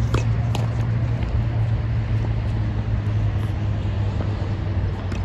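Steady low rumble of road traffic, with a couple of faint knocks in the first second from tennis play on the court.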